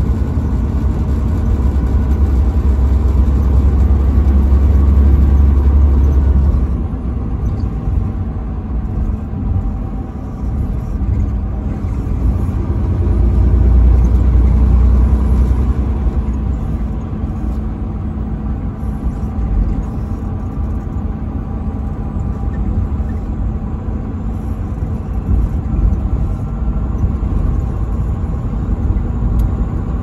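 Semi-truck engine and road rumble heard from inside the cab while cruising on the highway: a steady low drone with faint engine tones, heavier for the first several seconds and again about halfway through.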